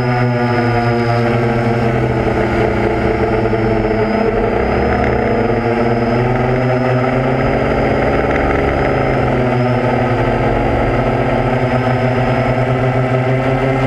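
Small multirotor drone's electric motors and propellers running steadily, heard close from the camera it carries, as a stack of tones that drift slowly up and down in pitch as the motor speeds change.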